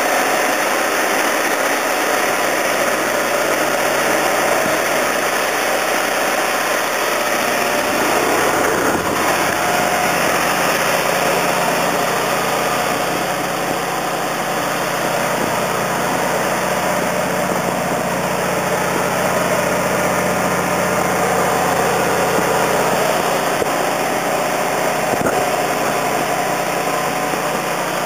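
Engine-driven equipment on a work bucket truck running steadily with an even hum. A deeper hum joins about a third of the way in and drops away past the middle.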